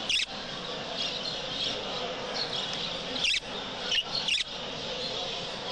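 Many budgerigars chirping and chattering together, with four sharp, louder budgie calls close by: one just at the start, then three in quick succession between about three and four and a half seconds in.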